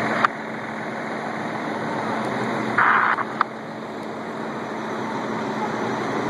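Fire apparatus engines running steadily, with a constant low hum. A brief louder burst comes about three seconds in, with a sharp click just after the start and another soon after the burst.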